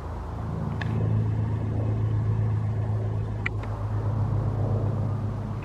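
Large airplane flying overhead: a steady low engine drone that swells over the first second or so and slowly eases toward the end.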